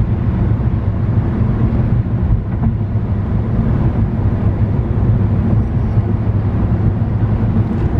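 Steady road and engine noise of a car driving at freeway speed, heard from inside the cabin: a continuous low rumble with no changes.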